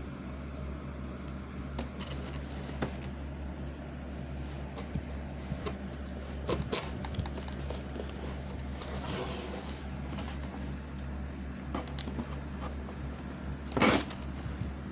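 Scattered clicks, taps and scraping from handling a cardboard shipping box and working at it with a hand tool to get it open, with one loud knock near the end. A steady low hum runs underneath.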